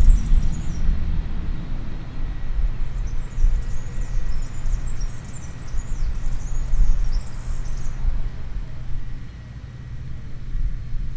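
Outdoor ambience: a steady low rumble with a faint hum, and small birds chirping in quick high twitters at the very start and again from about three to eight seconds in. The rumble eases near the end.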